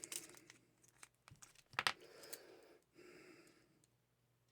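Small challenge lock being worked with its key: faint metallic clicks, a sharper snap just under two seconds in, then soft rustling of handling.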